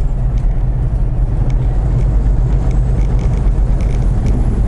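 Semi truck's diesel engine running with road noise at steady highway cruise, heard from inside the cab.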